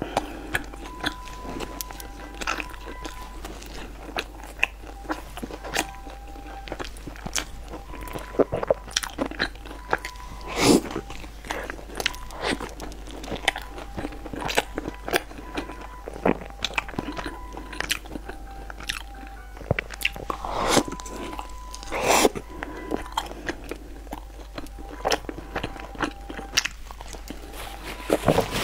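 Close-miked chewing and mouth sounds of someone eating soft bread dipped in a milky liquid: a string of short wet smacks and clicks, a few louder ones now and then.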